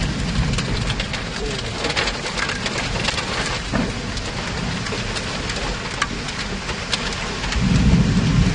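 Heavy rain beating down on and around a car, a dense hiss full of sharp individual hits, over a steady low rumble that swells briefly near the end.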